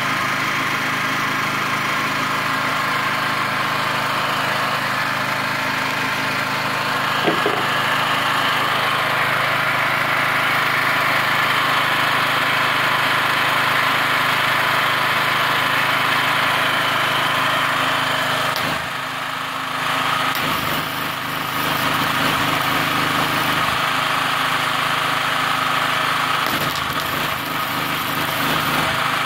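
Single-cylinder petrol engine of a MultiPro GGA-3900 portable generator running steadily and smoothly. Near the end, the crackle of a gasless flux-core MIG welding arc joins in as the generator takes the welder's load.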